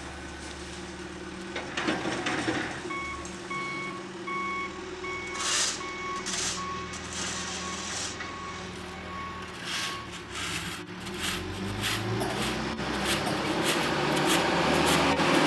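John Deere 310SG backhoe loader's diesel engine running while its reversing alarm beeps steadily for several seconds, with scattered clanks and knocks. The machine grows louder near the end.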